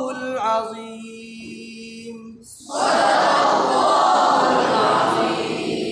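A man's voice holds a steady hummed tone at the close of a Quran recitation, fading over about two seconds. About three seconds in, a loud breathy rushing noise starts and lasts about four seconds.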